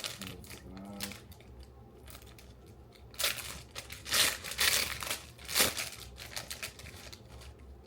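Packaging crinkling and rustling in irregular bursts as hair bows are unwrapped. The loudest rustles come from about three to six seconds in.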